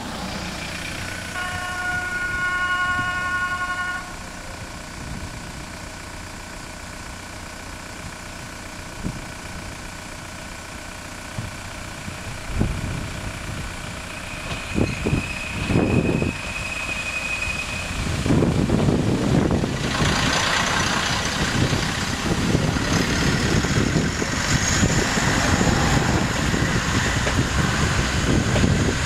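Kolzam SA109 diesel railcar sounding its horn, a chord of several notes about a second in, lasting a few seconds as it approaches. A single high tone comes midway, and then the railcar passes close: diesel engine and wheels on the rails, loud for the last third.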